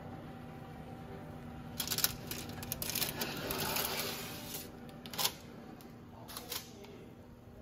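A metal baking sheet lined with parchment is slid out over an oven rack. There are a couple of sharp metal clicks about two seconds in, then a scraping rustle of tray and paper for about two seconds, then another knock about five seconds in, all over a low steady hum.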